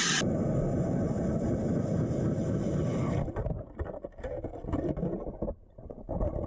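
Ice auger boring down through thick lake ice, heard muffled from under the water as a steady drone. After about three seconds the bit breaks through, and the sound turns to uneven churning and swishing as ice chips and slush wash into the water.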